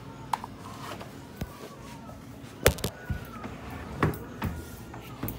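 Sliding screen door handled in its frame: a string of sharp knocks and clicks, about seven in all, the loudest a little past halfway.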